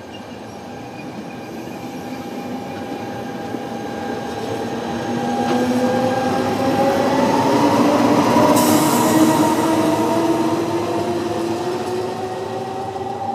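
Trenord push-pull regional train passing close by: coaches, then its electric locomotive, loudest about eight seconds in before fading. A motor whine of several tones rises steadily in pitch, and a sharper hiss joins about eight and a half seconds in.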